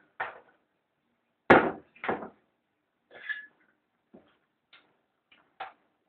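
A sharp knock about a second and a half in, then a second clunk, followed by a few light taps and clinks: a glass blender jar and drinking glasses being handled on a kitchen counter.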